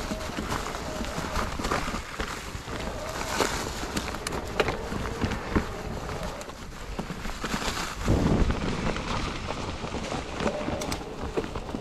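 Wind buffeting the microphone, with scattered clicks and knocks from moving along a trail and a heavier thump about eight seconds in.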